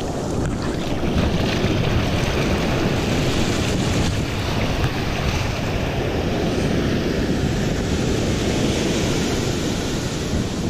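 Ocean surf washing in and out around the legs in shallow water, a steady rush of water and foam, with wind noise on the microphone.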